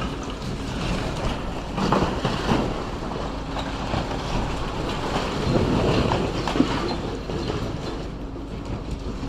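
Demolition machinery working on the building: a steady mechanical rumble with grinding, scraping and clattering of metal and rubble.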